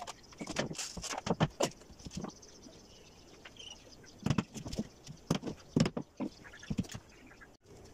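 Hammer knocking a wooden strip against the edge of a wooden door board: a run of irregular taps and knocks, some in quick clusters.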